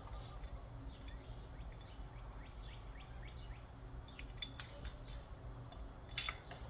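Faint metallic clicks and scrapes of standoffs being threaded by hand into a Harley air cleaner backing plate, with a few sharper clicks near the middle and near the end, over a steady low hum.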